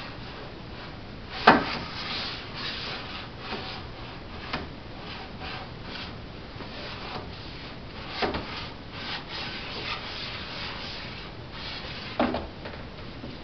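Board books rubbing, scraping and knocking against a wooden bookcase shelf and the floor as a baby pulls at them. There are four sharp knocks; the loudest comes about a second and a half in.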